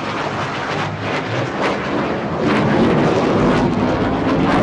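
HAL Tejas fighter's single GE F404 turbofan during a display pass: a loud, rushing jet noise that swells and gains rumble about halfway through.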